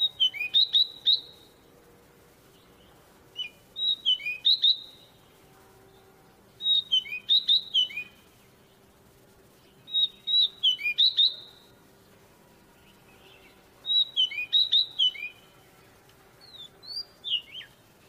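Caged magpie-robin singing: six short phrases of quick, clear whistled notes, one every three to four seconds, the last one softer.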